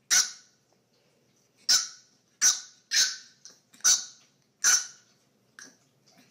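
French bulldog puppy barking: about six sharp, high-pitched yaps at uneven intervals, with a couple of fainter ones between.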